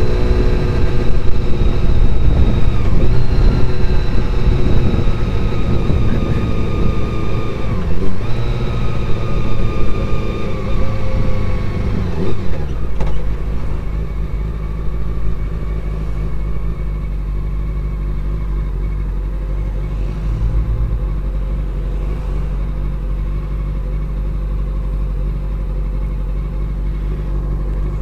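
Honda CBR400RR inline-four motorcycle engine heard through a helmet-mounted mic. It rises and falls in pitch while riding, then drops as the bike slows. From about halfway through it settles to a steady, quieter idle.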